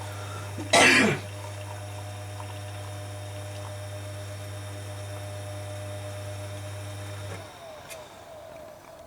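Coffee machine's pump buzzing steadily as it runs water through, then cutting off about seven seconds in. There is a brief loud burst about a second in.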